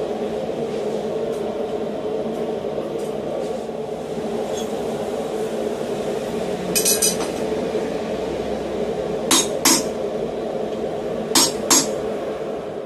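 Hammer blows on a hand-held steel hot cutter cutting through hot flat bar on a pig-iron swage block. A quick rattle of light strikes comes about halfway, then two pairs of sharp ringing blows near the end. A steady low hum runs underneath.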